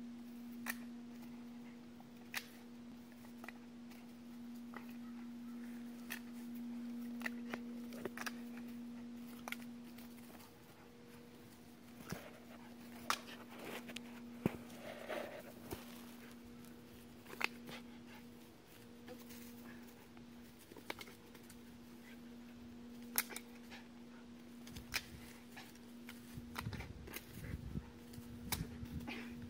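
Scattered short clicks and snaps from a dog playing fetch with sticks, catching and mouthing them, over a steady low hum.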